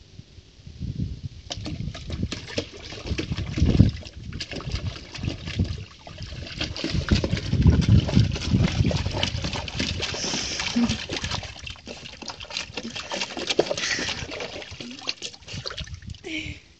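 A puppy splashing and sloshing about in shallow water in a plastic crate, with irregular splashes that grow busier about a second and a half in.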